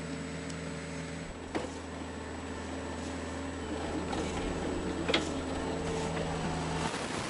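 Hitachi mini excavator's diesel engine running steadily while it works dirt, with two sharp knocks about a second and a half in and about five seconds in, the second the loudest. Near the end the engine sound cuts off and gives way to a windy hiss.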